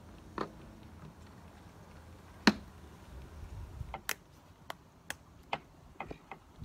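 Plastic motor-oil bottles being handled: a single sharp knock about two and a half seconds in, then a run of small clicks as the cap of a fresh bottle is twisted off and its seal broken.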